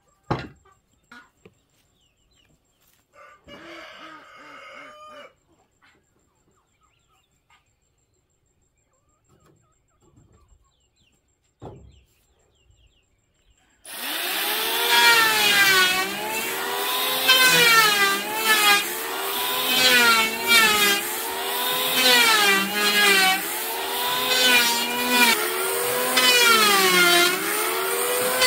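A corded electric hand planer starts suddenly about halfway through and runs on loudly, its pitch dipping and rising about once a second as it is pushed along a wooden board. Before it starts, there are a few light knocks and a rooster crows briefly.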